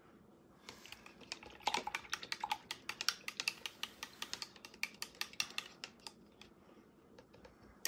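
Paintbrushes clicking and clattering against a container in a quick, irregular run of light knocks, starting about a second in and stopping about six seconds in.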